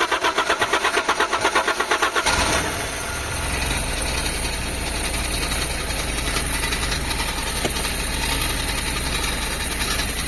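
Carbureted Toyota HiAce van engine being cranked by its starter, an even chug about seven times a second, catching about two seconds in and then idling steadily on its freshly cleaned carburetor.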